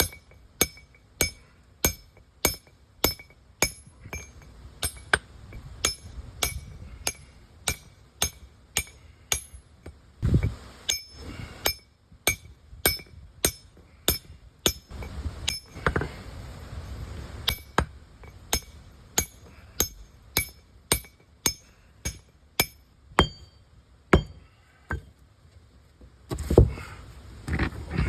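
Hammer blows on steel stone-splitting tools, about two sharp ringing metallic strikes a second, each with the same high ring. A few heavier, duller knocks come in among them.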